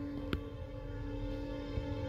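Norfolk Southern locomotive air horn holding a steady chord of several notes, the crossing warning of an approaching train, with one sharp click about a third of a second in.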